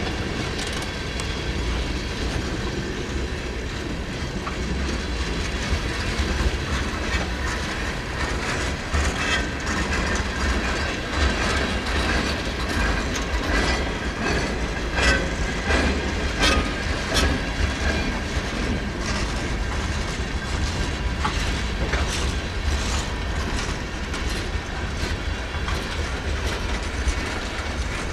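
Freight train cars rolling past, their steel wheels clicking over rail joints in an uneven, continuous clatter over a low rumble, with the clicks thickest in the middle stretch.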